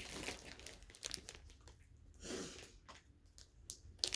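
Packaging being handled: irregular crinkling and rustling with scattered small clicks, and one longer rustle a little past halfway.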